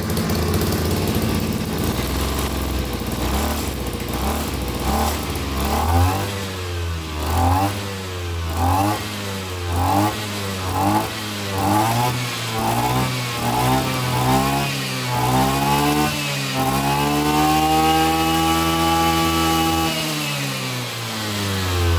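Kioritz GE3400 34cc two-stroke brush cutter engine running steadily at first. About six seconds in it is revved in a string of quick throttle blips, roughly one a second, each rising and falling in pitch. It is then held at high revs for about four seconds and falls back near the end.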